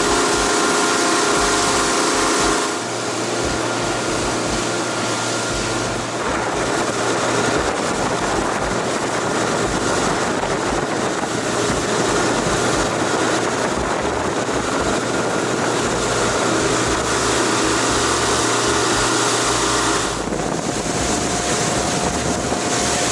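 Boat under way: a steady engine hum under a loud, even rush of wind and water.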